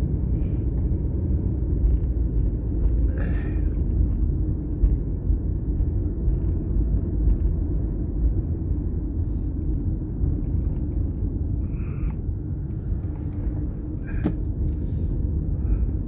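Steady low rumble of a car being driven, engine and tyre noise heard from inside the cabin, with a few faint short clicks.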